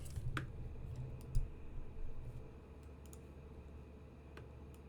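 Scattered quiet clicks at a computer, over a low steady hum, with a soft thump about a second and a half in.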